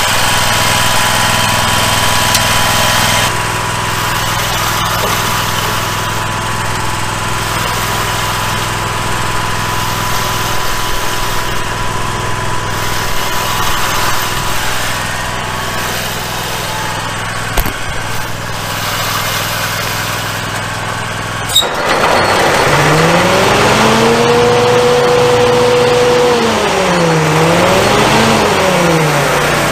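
Scag Tiger Cat zero-turn mower engine running steadily. About 21 seconds in there is a click, then a louder whine that climbs in pitch, holds, dips twice and climbs again.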